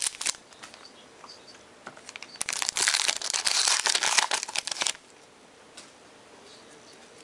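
A 2012 Topps Archives baseball card pack's wrapper being crinkled and torn open: a dense crackling rustle lasting about two and a half seconds, starting a couple of seconds in.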